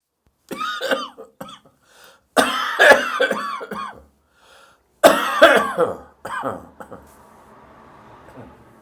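A person's dry morning cough, coming in several fits with the two loudest about two and a half and five seconds in, dying away to faint breath near the end.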